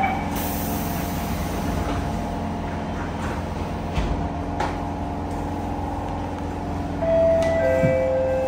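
Interior of a Siemens C651 metro car: the doors close with a thud about four seconds in, over a steady low hum. Near the end the traction motors start up as the train pulls away, giving a louder whine that moves in steps of pitch.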